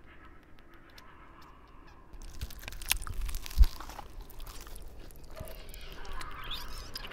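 Squeaky cartoon hamster calls and squabbling chatter, starting about two seconds in, with a sharp thump partway through and a rising squeal near the end.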